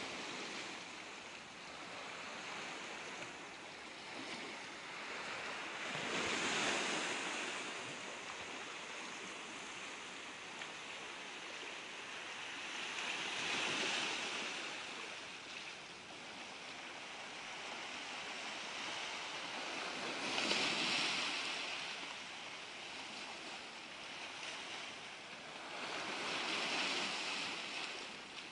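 Small waves washing in on a pebble and rock shore, each one swelling up and falling away, four in all about seven seconds apart.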